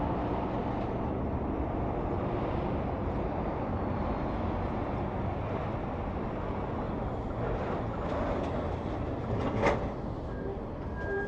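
Semi-trucks passing on a highway: a steady rush of tyre and engine noise, with one brief sharp sound near the end.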